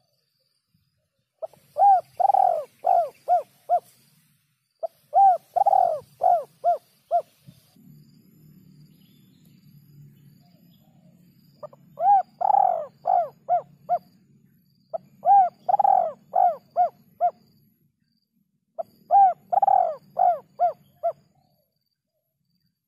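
Spotted dove (terkukur) cooing: five phrases of five or six short, arched hoots each, a couple of seconds apart. A faint low hum sits under some of them.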